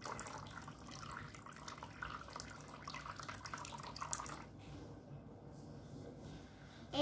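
A thin stream of water squirted from a plastic syringe, trickling and splashing into water in a plastic toy pot. It stops about four and a half seconds in.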